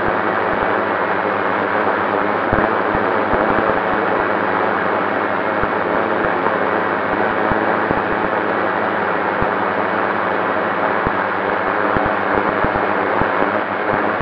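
FPV racing drone's motors and propellers running steadily, heard from the camera on board as a dense whirring hiss with faint steady tones, broken by many short low buffets of wind on the microphone.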